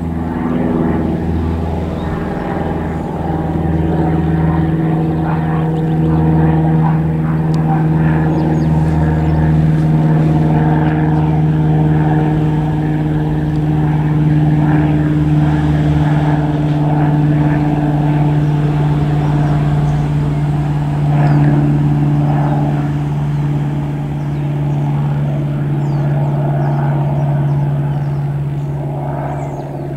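Single-engine high-wing light aircraft flying overhead, its piston engine and propeller giving a steady drone with an even engine note.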